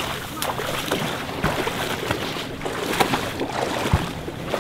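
A person wading through shallow marsh water, each step splashing and sloshing at an uneven pace, with reeds brushing past and a few short knocks.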